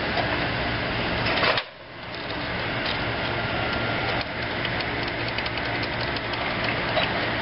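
Kohler 25 HP gas engine of a Hustler Raptor zero-turn mower running steadily. The sound drops out suddenly about one and a half seconds in and comes back within half a second.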